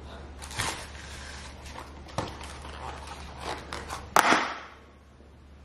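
Snack packaging being handled: scattered crinkles and clicks of cardboard and plastic, the loudest a sharp click about four seconds in.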